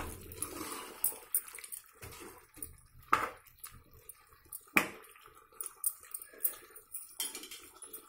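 Metal spoon stirring a watery chicken curry in an aluminium pressure cooker: wet sloshing with small scrapes and clicks, and two louder knocks of the spoon against the pot about three and five seconds in.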